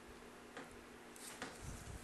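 Faint clicks of small parts being handled while working on the drone, a few scattered light ticks, then soft low rumbling handling noise near the end.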